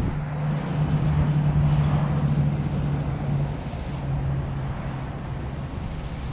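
A motor running with a steady low hum. It is loudest through the first half and runs on slightly fainter after.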